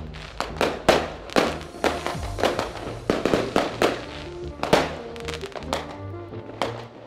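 Music with a steady bass line, mixed with firework bangs and crackles going off at uneven intervals, about two a second.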